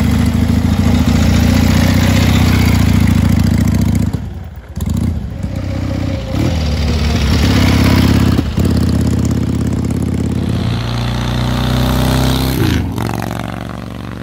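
Harley-Davidson XLCH Sportster's V-twin engine running loud and being revved, its note dropping away briefly a few times before picking up again.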